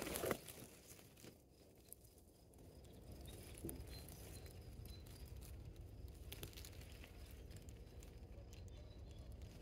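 Faint outdoor ambience: a low steady rumble with scattered soft rustles and clicks, the loudest a brief rustle right at the start, from the camera being handled and moved close through the grass.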